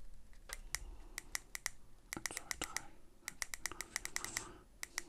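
Small buttons on an Aspire Rhea X vape mod clicking under a thumb. A few separate presses come first, then quicker runs of clicks from about two seconds in. Each click is short and crisp, with a slight ring.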